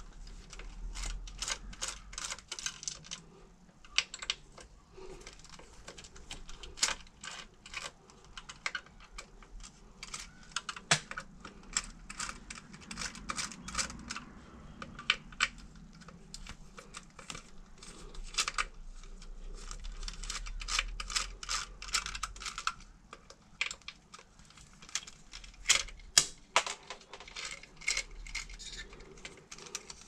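Many quick, irregular light clicks and rattles of a 2.5 mm hex driver working small screws out of the plastic cover on a Xiaomi M365 Pro scooter's front fork, the metal bit ticking in the screw heads as they turn.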